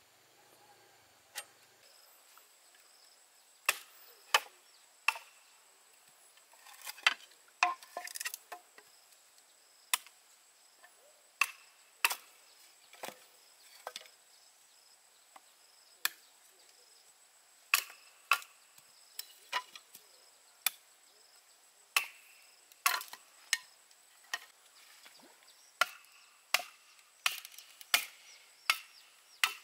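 Bamboo being chopped with a blade: sharp, separate strikes at irregular intervals, roughly one a second. A steady, high insect trill runs underneath.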